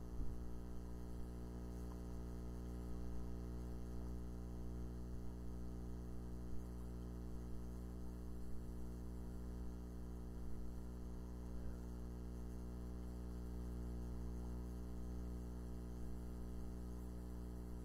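Steady electrical mains hum, a low buzz with many evenly spaced overtones, picked up in the recording chain.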